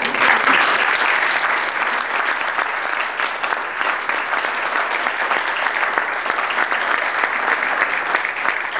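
Audience applauding: dense, steady clapping from a room full of people.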